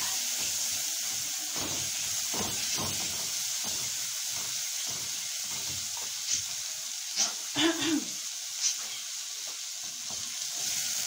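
Split chickpeas sizzling steadily as they fry in ghee with onion, while a silicone spatula stirs and scrapes them around a metal pot. A few strokes are louder than the rest between about six and nine seconds in.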